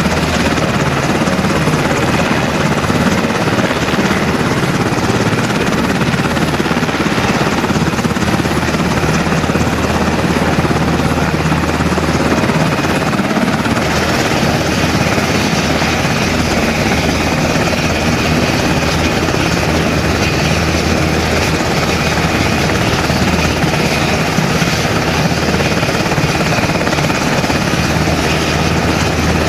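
UH-60 Black Hawk helicopter running on the ground with its rotor turning: a steady, loud mix of twin turboshaft engine whine and rotor noise. The sound shifts slightly about halfway through.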